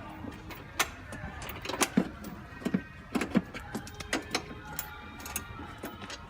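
Irregular clicks and knocks of hand tools and metal parts being handled while bolting a fairing onto a motorcycle, a dozen or so sharp taps at uneven spacing, over faint background music.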